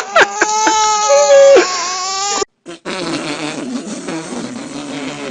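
A baby crying in loud, wavering wails that cut off abruptly about two and a half seconds in. After a brief gap, a noisier recording with a low, unsteady rumble follows.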